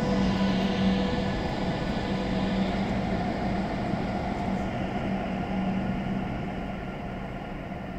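Train running with a steady electric hum over rumbling noise, slowly growing quieter.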